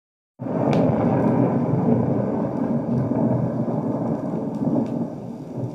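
A recorded thunderstorm sound effect, a long roll of thunder with rain, played back from a vinyl record over loudspeakers. It starts suddenly about half a second in and fades near the end.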